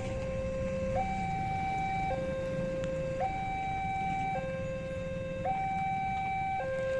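Railway level-crossing warning alarm: an electronic two-tone signal alternating between a lower and a higher tone, each held about a second, warning of an approaching train as the crossing barrier comes down.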